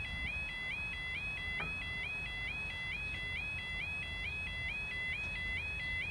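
Level crossing audible warning alarm sounding: a steady, high two-tone warble that repeats about four times a second, over a low rumble.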